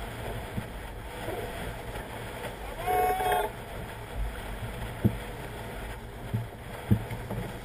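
Steady rush of wind and water along a Sigma 33 yacht heeled and sailing upwind through chop, with a few short thumps as the hull meets waves. A brief shouted call from a crew member comes about three seconds in.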